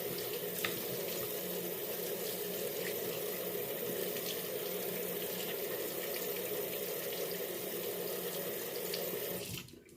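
Bathroom sink tap running steadily into the basin, then shut off sharply near the end.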